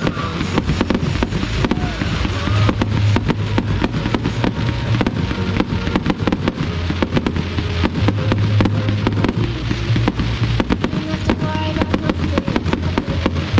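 Fireworks going off in a dense run of crackling and popping, with music playing underneath.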